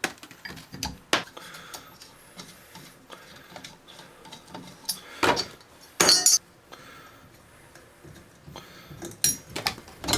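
Scattered clinks and knocks of hand work on hard bathroom fixtures and tile, with a louder clattering scrape about five seconds in and again about a second later.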